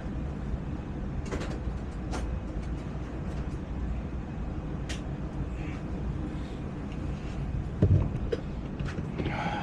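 Lionel postwar 2321 Trainmaster running on O-gauge track, a steady low rumble of its motors and wheels with scattered clicks, on a test run after one of its two motor trucks was reattached. A single louder thump comes about eight seconds in.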